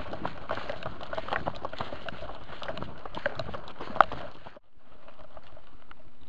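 Footsteps of a player running through dry brush, crunching steadily, with one sharp snap about four seconds in. The sound then cuts off abruptly and gives way to a quieter stretch with a faint steady low hum.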